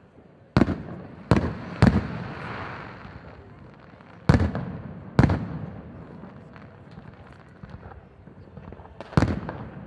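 Aerial firework shells bursting: six sharp bangs, three close together in the first two seconds, two more around the middle and one near the end. Each bang trails off in an echo, with a softer continuous noise between them.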